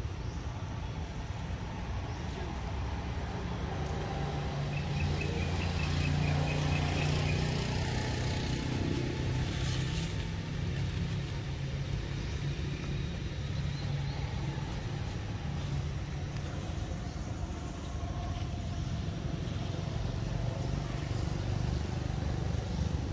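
Low engine rumble of a motor vehicle, swelling about five seconds in and easing off after about ten seconds. A short run of high chirps sits on top around six seconds in.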